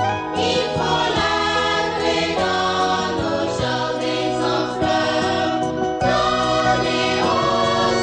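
Vocal group singing a Haitian gospel song in choir harmony, with sustained notes changing about once a second.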